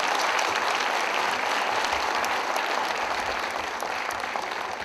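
A small group of people applauding, the clapping gradually dying away.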